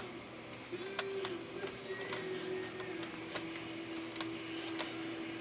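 Rag scrubbing the rubber back feed rollers of a Torpedo 18B typewriter, with irregular light clicks and rubbing from the mechanism, over a steady low hum.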